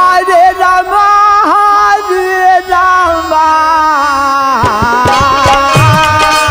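An elderly male devotional kirtan singer holds long, wavering sung notes over a harmonium. Hand drums come in with a steady beat about three-quarters of the way through.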